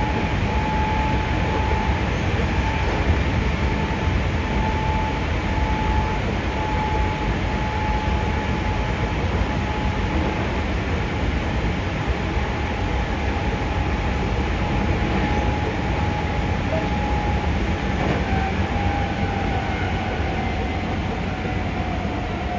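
Running noise inside a Hankyu 5300 series resistance-control electric train car: a steady rumble of wheels on rail with a high whine that drops slightly in pitch near the end.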